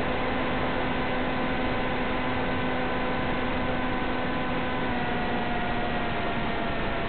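Steady hiss with a droning hum of several tones that dips slightly in pitch about five seconds in. The drone is an electric FPV plane's motor and propeller at cruise power, picked up by the onboard camera's microphone and carried over the hissy analog video link.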